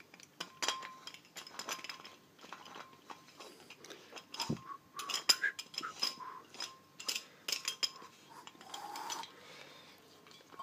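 Brass fittings on a fire extinguisher's valve head being handled and screwed by hand: a run of light, irregular metallic clicks and clinks.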